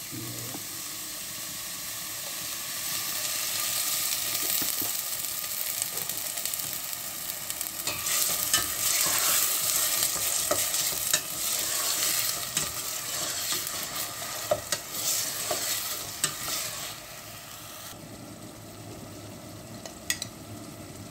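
Chopped onions frying in oil in a stainless steel pot, the sizzle growing over the first few seconds. From about eight seconds in a plastic spatula stirs them, scraping and knocking against the pot, and the sizzle settles quieter for the last few seconds.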